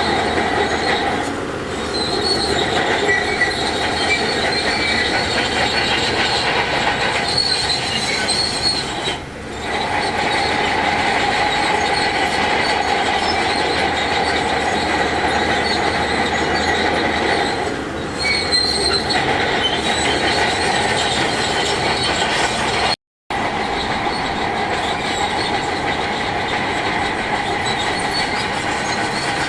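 Heavy earthmoving machinery working, with a steady high-pitched metallic squeal over the running engine. The squeal dips briefly a few times, and the sound cuts out completely for a moment about 23 seconds in.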